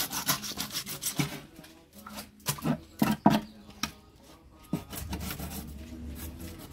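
Kitchen knife scraping and cutting along a tilapia on a wet wooden board. A run of short, quick scraping strokes, thinning out after about three and a half seconds.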